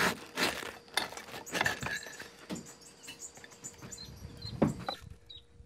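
Irregular light clicks and knocks of handling, over a faint steady hum that stops about five seconds in.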